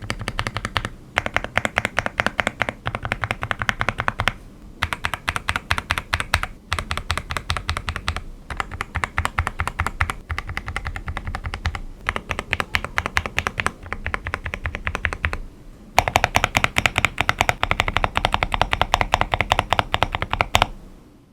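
Typing on a Monsgeek M1W aluminium mechanical keyboard with Akko V3 Lavender Purple Pro tactile switches: fast runs of clacky, poppy keystrokes in several bursts with short pauses between them. The typing is louder for the last few seconds before it stops.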